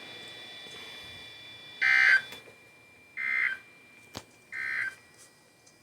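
Emergency Alert System end-of-message signal: three short, buzzy digital data bursts, each about half a second long and spaced about a second and a third apart, marking the end of the flash flood warning. A faint steady hiss comes before the bursts, and a single sharp click falls between the second and third.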